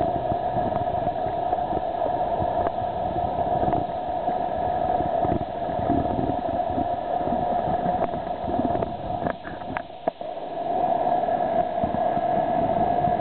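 Floodwater rushing steadily through a desert wash, briefly quieter about ten seconds in.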